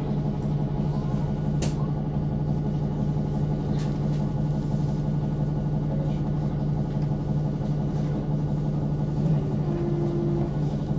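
Steady engine drone and cabin hum heard from inside a NefAZ 5299 city bus, with a constant low hum and an even level throughout.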